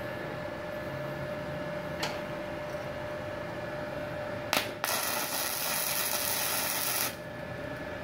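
Gasless flux-core MIG welding arc from a MultiPro MIG-MMA/TIG 160 AS-MZ welder, struck with a sharp click just before the middle and crackling steadily for about two seconds before it stops. A steady hum runs underneath. The 1300-watt household supply holds under the welding load.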